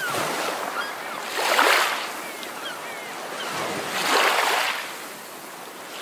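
Ocean surf washing onto the shore in slow swells. Two waves rise and break, about a second and a half and about four seconds in, with a softer wash between them.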